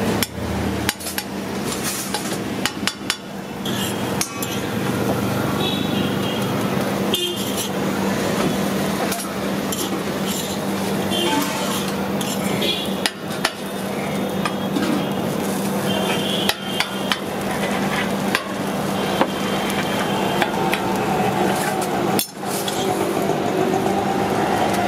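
Metal spatula scraping and striking a flat griddle as a dosa is folded and chopped into pieces, giving sharp irregular clicks throughout, over a steady low hum.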